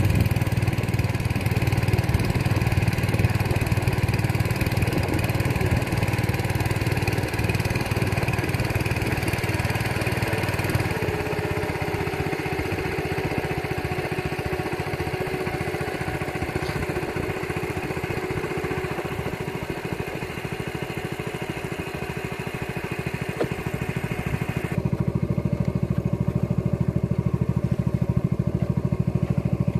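A small boat's engine running steadily under way, a continuous mid-pitched drone with a fast even pulse. Its tone shifts about a third of the way through and changes abruptly again near the end.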